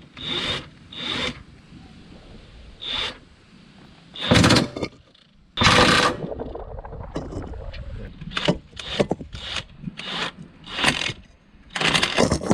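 A series of short scrapes and knocks from hand tools working on metal car parts, coming in separate irregular bursts. Two are louder, at about four and a half and six seconds in, and then quicker, shorter ones follow toward the end.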